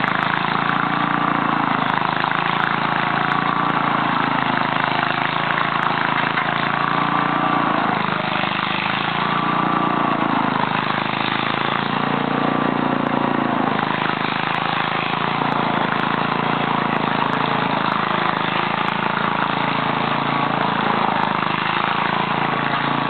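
ATV engine running under load while dragging a log, its revs swelling and easing every two to three seconds.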